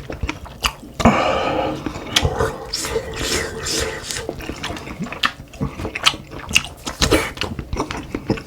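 A person eating close to the microphone: slurping stew broth and chewing, with many small clicks throughout. There is a longer slurp about a second in.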